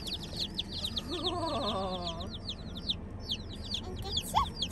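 A box of ISA Brown baby chicks peeping continuously, a dense stream of rapid, high, downward-sliding peeps. About a second in, a toddler's voice rises and falls briefly.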